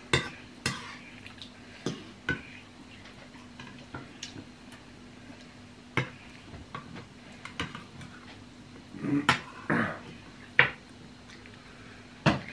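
Spoons and forks clinking and scraping against bowls of noodle soup as two people eat: scattered sharp clicks, one louder near the end, over a faint steady hum.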